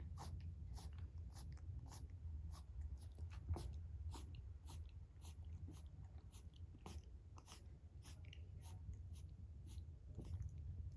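Rabbit chewing: faint dry crunching clicks, about three a second, slightly irregular, with one sharper click about three and a half seconds in. A low steady hum lies under them.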